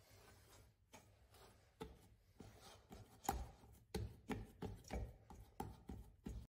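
Faint, short soft thuds of a hand pressing and squeezing a stiff, relatively dry dough in a stainless steel pot. The thuds are sparse at first, then come about two to three a second from about three seconds in.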